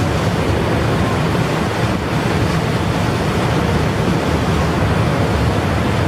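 Steady wind on the microphone: a dense low rumble with a rushing hiss over it, at an even level throughout, with no mechanical sound standing out.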